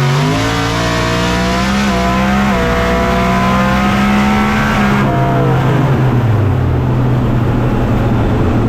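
Fourth-generation Camaro drag car accelerating hard on a pass, its engine pitch climbing with gear changes about two seconds in. About five seconds in the engine note drops away as the throttle is lifted, and it carries on at a lower, steadier pitch.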